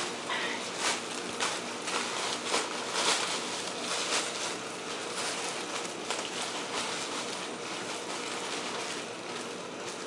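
Thin plastic sheet crinkling and rustling under hands pressing and smoothing dough flat, with irregular crackles throughout, busiest a few seconds in.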